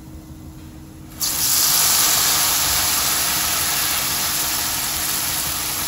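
A batter-coated banana slipped into hot oil in a frying pan, setting off a sudden loud sizzle about a second in. The sizzle carries on steadily, easing only slightly as the fritter fries.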